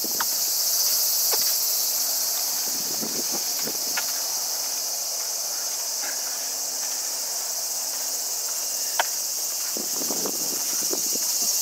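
A steady, high-pitched chorus of trilling insects fills the air, with occasional footsteps and scuffs on pavement as someone walks.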